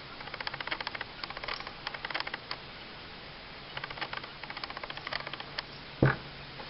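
Bursts of fast, fine scratchy ticks as the pistol barrel is rubbed down during lubrication, with one sharp knock about six seconds in.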